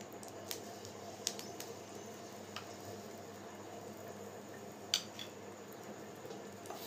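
A metal spatula tapping and scraping on a tawa while ghee is spread over a cooking paratha: a few scattered light clicks and one sharper tap about five seconds in, over a faint steady hum.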